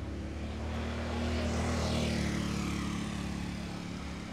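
An engine-driven vehicle passing close by. Its engine note swells to a peak about two seconds in and fades away, with a rushing hiss that drops in pitch as it goes past.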